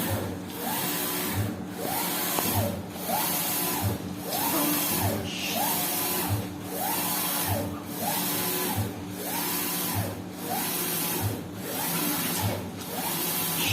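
Flatbed UV printer running: its print-head carriage sweeps back and forth about once every 1.2 seconds. Each pass is a whine that rises and falls, with a short dip as the carriage reverses, over a steady machine hum.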